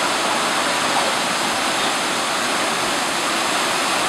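Steady rush of water pouring down Sliding Rock's sloping rock face into the pool below.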